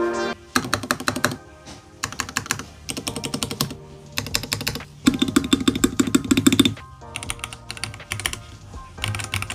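Typing on an ASUS ROG Azoth mechanical keyboard with ROG NX Red linear switches: several quick bursts of keystrokes with short pauses between them, the longest and loudest burst in the middle.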